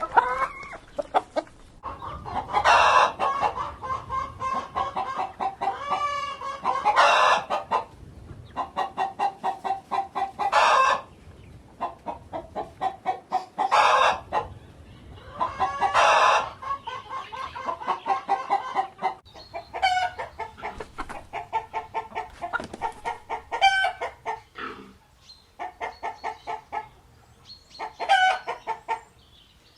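Chickens clucking in quick repeated trains, broken every few seconds by loud drawn-out calls.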